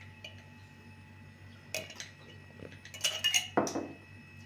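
A metal spoon clinking and scraping against a jar and a cooking pot: a couple of sharp clinks about two seconds in, then a quick cluster of clinks and a scrape about three seconds in.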